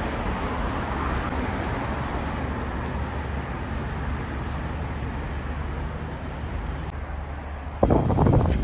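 Steady city traffic noise from passing cars on a busy road. About 8 seconds in it gives way abruptly to louder, rough buffeting of wind on the microphone.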